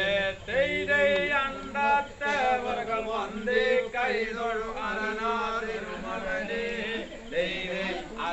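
Tholpavakoothu puppeteer's chanted recitation of the play's verses: a male voice in a melodic sing-song chant with held, wavering notes.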